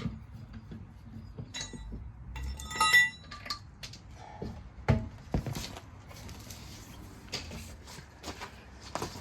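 Metal suspension parts clinking and knocking as they are handled and set down. There is one sharp ringing clink about three seconds in and a dull knock about two seconds later, followed by scraping and rustling.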